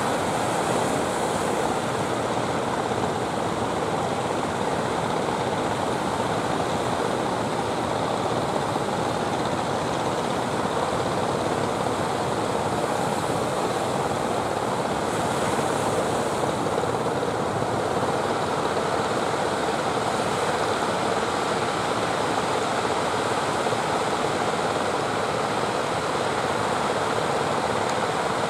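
Steady wash of surf breaking on the shore, with a continuous engine drone underneath from the small petrol engines of outrigger fishing boats coming in through the waves.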